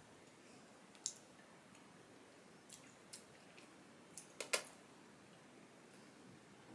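A quiet room with a few faint, short clicks and small handling noises, the loudest about four and a half seconds in.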